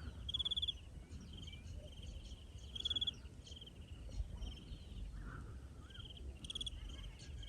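Crickets chirping: short pulsed chirps, high-pitched, repeating every second or so, some louder than others.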